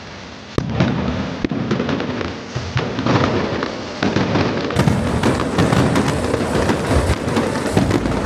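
Fireworks display: a sharp bang about half a second in, then dense crackling with many rapid pops and bangs, fuller and louder from about five seconds in.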